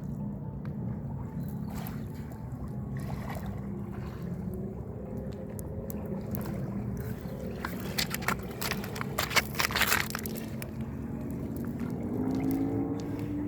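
A steady low mechanical hum with water sloshing. There is a cluster of sharp clicks about eight to ten seconds in, and tones rising in pitch near the end.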